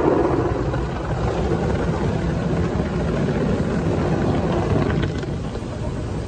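Automatic car-wash machine heard from inside the car's cabin: water spraying onto the windshield and a rotating wash brush sweeping down over the glass, a steady rushing noise that eases slightly near the end.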